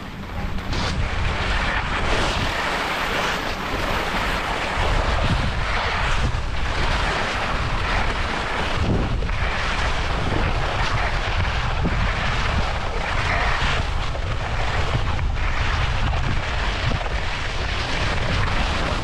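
Wind rushing and buffeting over the camera microphone during a fast downhill ski run, with skis scraping over the snow; the rush rises about a second in and then goes on in gusty swells with a heavy low rumble.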